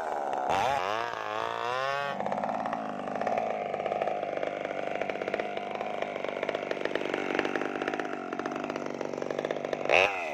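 Maestro mini chainsaw revving up and down for about two seconds, then held at full throttle under load as its chain rips lengthwise through a sengon log. A brief louder burst comes near the end.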